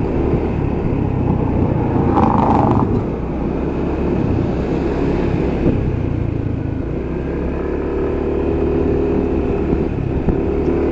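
Vehicle engine running steadily with road rumble while driving along, with a brief high tone about two seconds in.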